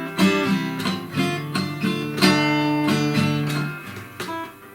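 Acoustic guitar played with the fingers rather than a pick: a run of plucked notes and chords ringing out, dying away near the end.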